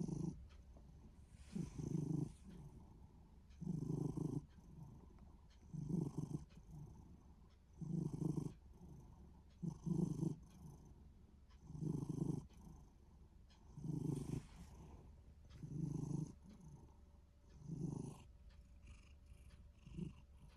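Minuet cat making a low rumbling sound in time with its breathing, one burst about every two seconds. It sits between a snore and a purr, and the owner cannot tell which it is; the cat seems content.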